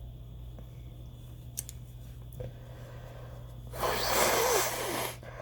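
A person with a nose tickle building toward a sneeze lets out a loud, breathy rush of air with a wavering voice in it. It starts nearly four seconds in and lasts over a second, after a stretch of low hum and a couple of faint clicks.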